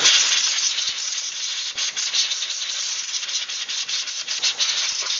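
Compressed air blowing from an air nozzle in one loud, continuous hissing blast, clearing debris off a small-engine carburetor; it starts sharply.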